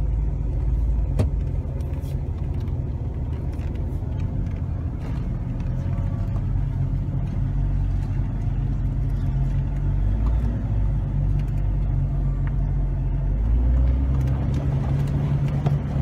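Steady low engine and drivetrain drone of an off-road vehicle heard from inside its cab as it crawls along a rough dirt trail, with a few brief knocks and rattles, the sharpest about a second in.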